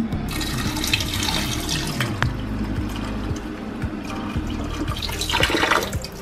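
Kitchen tap comes on and runs into a glass bowl of soaked pork liver in a stainless steel sink, splashing as the liver is rinsed. The splashing grows louder near the end as a hand stirs the pieces in the water.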